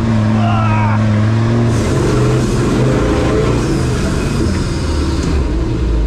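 Off-road 4x4's engine running under load. Its pitch holds steady for the first second and a half, then changes and wavers as the revs vary.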